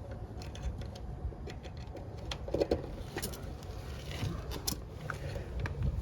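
Small clicks, taps and metallic rattles of hand work as the air conditioner's dual-run start capacitor is refitted in the outdoor unit, over a steady low background rumble.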